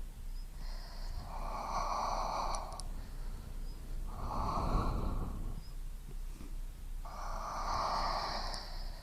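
A person breathing close to a binaural microphone: three long breaths, each lasting about two seconds, a couple of seconds apart.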